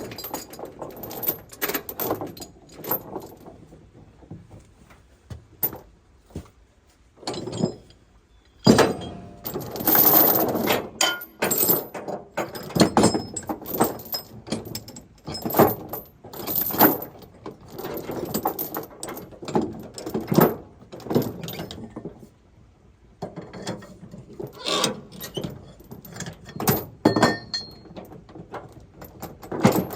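Steel tie-down chain being handled and hooked to secure a load, clinking and clanking in irregular bursts with short pauses between.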